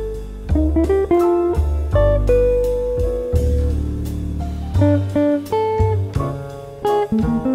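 Background music: a melody of plucked notes over deep, sustained bass notes.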